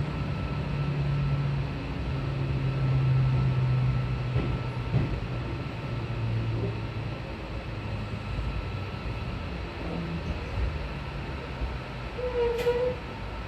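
Renewed Keio 8000 series electric train with PMSM IGBT-VVVF drive running, heard from inside the car: steady low motor and inverter tones that shift in pitch in steps, with a brief squeal near the end.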